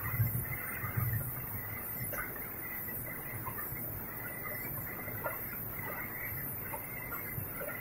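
Automatic cooking-oil filling machine running: a steady mechanical hum with a faint high tone and scattered small clicks.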